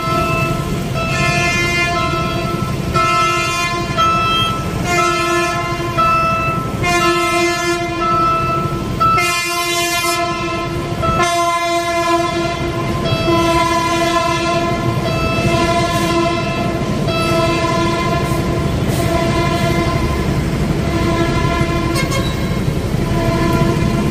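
Train horn sounding in a long series of blasts, each held about a second, over the continuous rumble of a running train.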